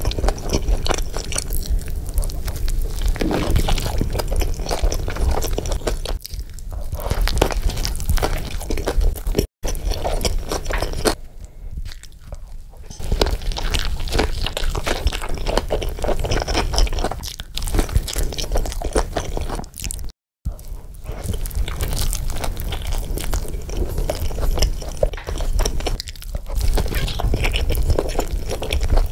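A person biting into and chewing a burger close to the microphone: dense crunching and wet chewing clicks, broken twice by a brief silence.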